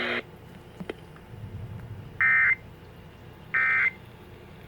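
Emergency Alert System end-of-message data bursts: short, harsh digital warbles, two of them about a second and a half apart, heard over faint static. At the very start a steady radio noise and hum cuts off.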